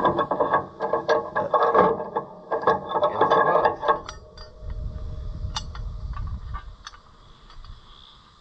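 Metal hardware on an Oliver 356 sickle mower being worked by hand as a new wooden pitman arm is bolted on: rapid clicking and rattling of a bolt, nut and tool for about four seconds. After that come a few single clicks over a low rumble.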